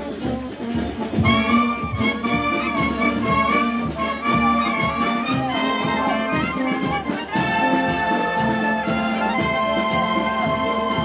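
Brass band playing, with trumpets and trombones holding notes over a steady percussion beat.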